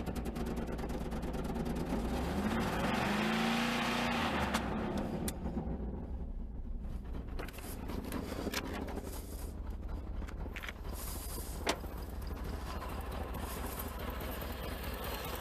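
Car engine running, revved up and back down once a few seconds in. A single sharp click comes past the middle.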